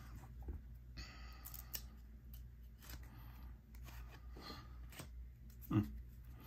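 Trading cards and their packaging being handled: scattered light clicks and rustles.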